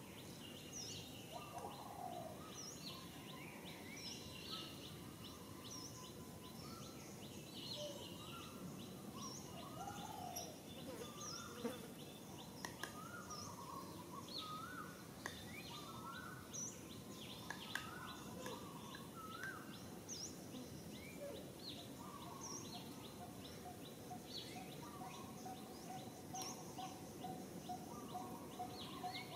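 Wild birds chirping and whistling over a steady outdoor background hiss, with many short overlapping calls throughout. Near the end a steady, rapidly repeated note joins in.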